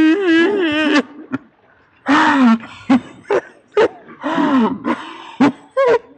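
A young woman's wordless voice: a loud, wavering, warbling vocal note about a second long, then a string of short laughs and gasps.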